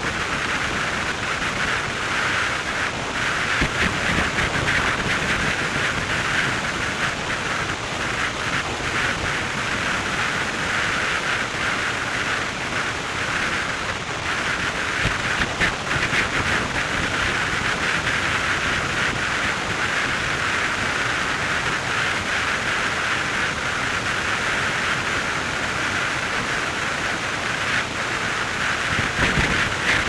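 Steady rushing wind noise of a car driving at road speed, an even hiss with no breaks or changes.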